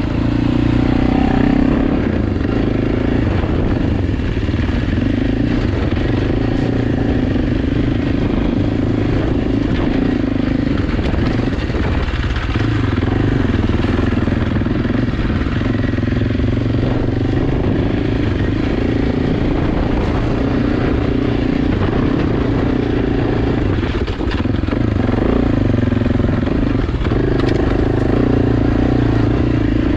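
AJP PR7's single-cylinder engine running as the motorcycle is ridden off-road, its note shifting a little with the throttle, with a brief drop in level about three quarters of the way through.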